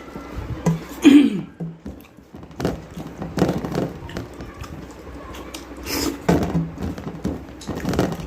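A person eating a home-cooked meal: chewing and squishing food, with several short knocks and clicks.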